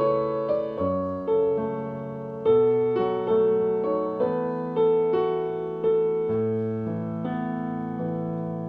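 Background music: a slow instrumental piano passage, single notes and chords struck about once or twice a second and left to fade.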